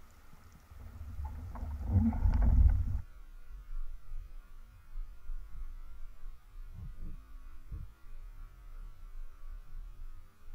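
Muffled underwater rumbling of water moving around an action camera in its housing, with a few knocks, loudest near two seconds in. It cuts off suddenly about three seconds in to a faint steady hiss and hum with a few soft thumps.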